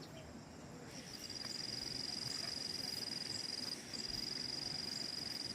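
An insect trilling: a steady, high, finely pulsing buzz that starts about a second in and breaks off briefly near four seconds.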